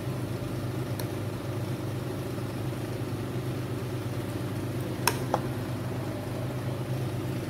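A steady low machine hum, like a kitchen appliance or fan running, with a few light sharp clicks, two of them close together about five seconds in.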